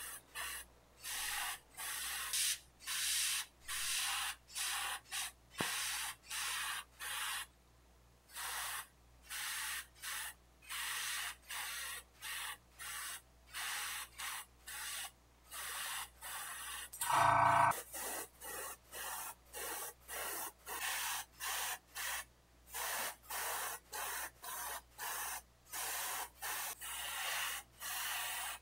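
Airbrush spraying paint onto a resin miniature in short bursts of hiss, about one to two a second, trigger pressed and released over and over. About two-thirds of the way through there is one brief louder sound.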